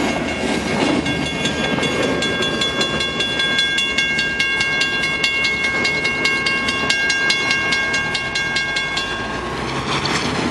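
Freight train rumbling past for the first second, then railway level-crossing warning bells ringing with rapid, evenly spaced strikes. The bells cut off about nine seconds in as the gate arms finish rising, and a car drives over the crossing near the end.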